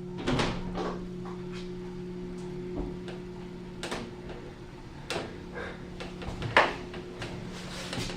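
Keighley-Schindler hydraulic lift running, its pump motor giving a steady low hum, with scattered clicks and knocks; the loudest knock comes about six and a half seconds in.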